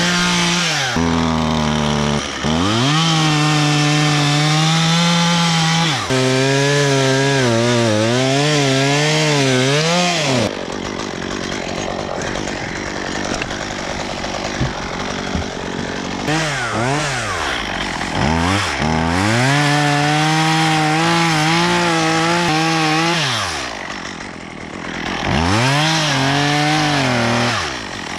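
Two-stroke chainsaw revving and cutting wood, its engine note wavering and dipping under load. About ten seconds in it drops back to a low idle for several seconds, then revs up again twice.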